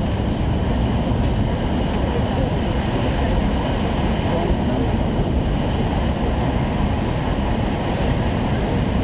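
E5 series Hayabusa Shinkansen heard from inside the passenger cabin while running at speed: a steady low rumbling running noise that stays even throughout.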